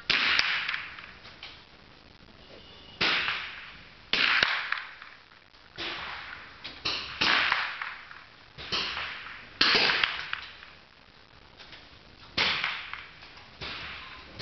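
Target rifle shots on a shooting range: about ten sharp cracks at uneven intervals, each ringing out briefly after it.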